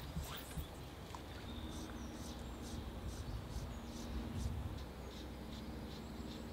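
Quiet outdoor ambience: small birds chirping in short, repeated calls over a low, steady rumble.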